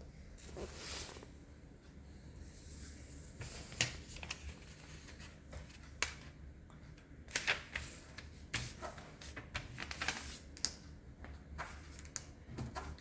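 A sheet of origami paper being handled and folded: irregular rustling and crisp crackles as it is creased, with a few sharper snaps.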